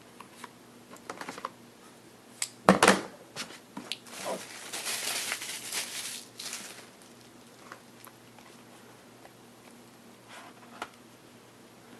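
A trading-card hobby box and its pack being opened by hand: scattered light clicks, a sharp snap or knock about three seconds in, then a couple of seconds of rustling around the fifth second.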